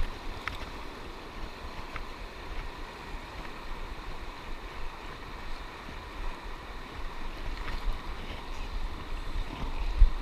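Steady rush of flowing river water, with wind buffeting the microphone in uneven low gusts.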